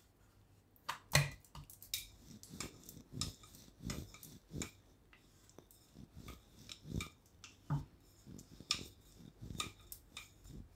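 Kulcha dough being rolled out with a thin wooden rolling pin on a round wooden board: scattered, irregular light knocks and clicks of wood on wood, the loudest about a second in.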